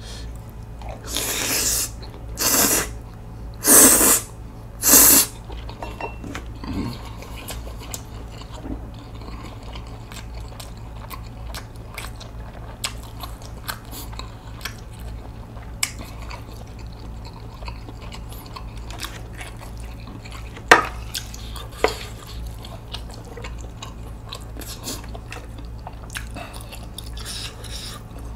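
A person slurping spicy mixed noodles with sea snails in four strong pulls within the first five seconds, then chewing. Two sharp clicks come about twenty-one and twenty-two seconds in, likely wooden chopsticks against the bowl.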